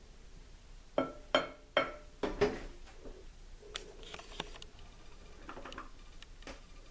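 Dishware clinking: about five sharp, ringing clinks in quick succession starting about a second in, then a few fainter knocks and clicks.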